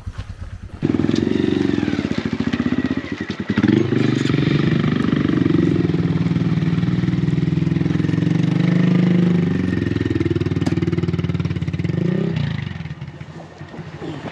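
Motorcycle engine running, its note rising and falling as the bike rides off, then dropping away sharply near the end.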